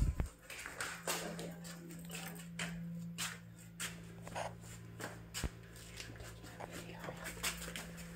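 Irregular footsteps and handling clicks from a phone carried while walking through rooms, over a steady low hum that comes in about a second in.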